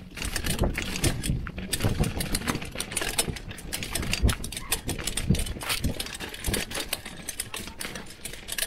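Mountain bike riding over a rough, rocky trail: a constant irregular clatter and rattle of the bike bouncing over the ground, many small knocks in quick succession over a low rumble.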